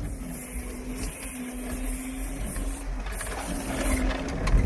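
Engine of a Veter tracked all-terrain vehicle running steadily under load as it crawls over rocky ground, a low rumble under a steady drone, with one knock near the end.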